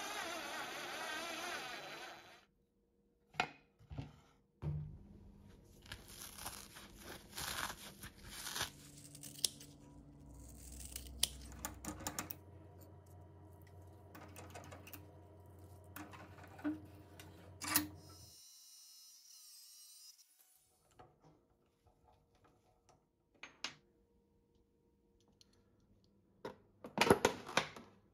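A cordless drill briefly whining as it drives a screw into a metal cable clamp, then scattered clicks and rubbing from hand work on a threaded rod in a metal vise, and near the end a utility knife slicing into a thin plastic bottle with loud crackles.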